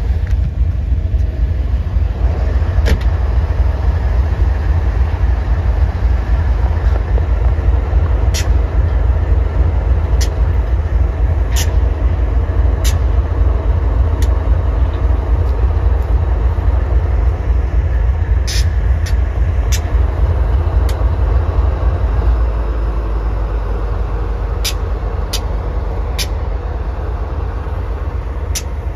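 Slow-moving BNSF double-stack intermodal freight train passing, its mid-train diesel locomotive running with a deep, steady rumble. Scattered sharp metallic clicks come through it, and the rumble eases a little about two-thirds of the way through.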